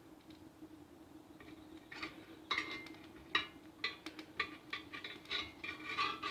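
Metal utensil clinking and scraping against a skillet of cooking sausage, a quick run of short ringing clinks starting about two seconds in, over a faint steady hum.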